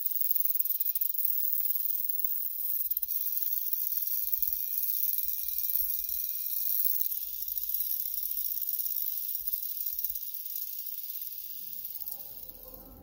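A wire brush spun by a cordless drill scrubbing sheet-metal clock parts: a steady high scratchy hiss with a faint motor whine underneath. It fades out near the end.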